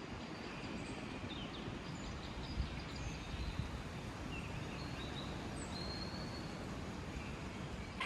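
Steady rush of running rainwater runoff, with several short, high bird chirps scattered over it.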